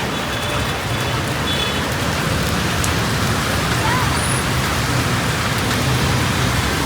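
Steady rain mixed with busy road traffic, vehicle engines and tyres going by. A low engine rumble grows stronger about halfway through.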